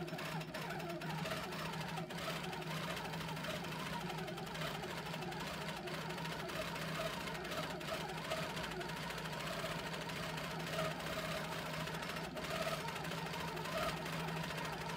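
Handi Quilter longarm quilting machine stitching without a break, a steady motor hum under rapid needle strokes, as it free-motion quilts a meander.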